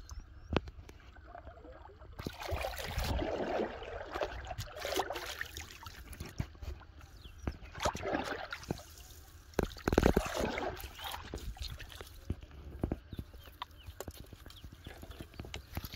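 A big hooked fish splashing and thrashing in shallow water as it is hauled in to the bank, in several rough bursts, the loudest about ten seconds in.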